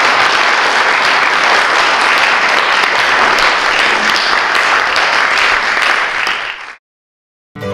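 Audience applauding steadily, then fading out near the end. A moment of silence follows, and music begins right at the close.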